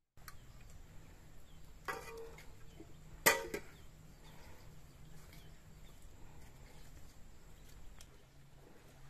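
Steel cookware clanking twice: a lighter clatter about two seconds in, then a sharper, louder clank just over a second later, each with a brief metallic ring, over a faint steady low hum.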